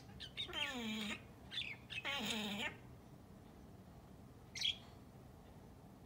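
Arabian Mau cat chattering at a bird: quick clicking chirps and two drawn-out mews that fall in pitch, about a second and a half apart, then a single short high chirp near the five-second mark.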